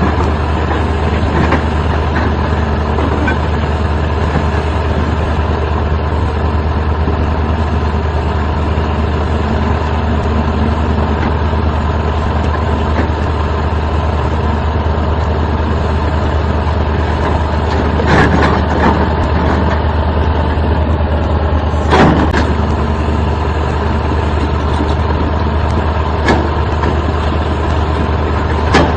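Excavator's diesel engine running steadily, with a few sharp metallic knocks in the second half.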